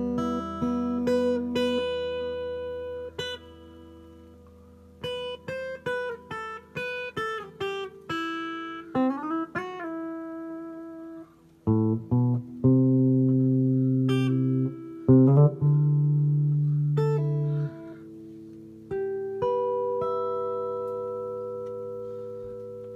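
Guitar played through a Fender Marine Layer Reverb pedal on its Room setting, a studio-style reverb: picked single notes and chords with a few sliding notes, each left to ring out in the reverb. A last chord rings on and fades slowly near the end.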